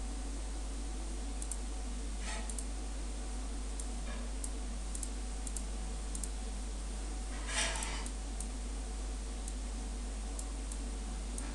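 Scattered computer mouse clicks, short and irregular, over a steady microphone hiss and low electrical hum. About seven and a half seconds in there is one brief, louder burst of noise.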